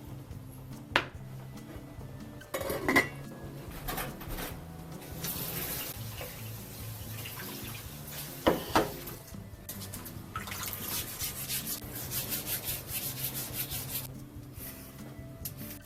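Kitchen sink work: dishes and containers knocking and clinking a few times, with a stretch of tap water running in the sink, then a quick rhythmic rubbing or rinsing sound.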